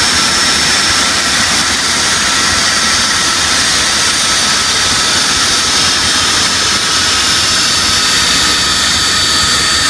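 Boeing 747SP's four jet engines running steadily at taxi power: a loud, even rush with a steady high-pitched whine over it.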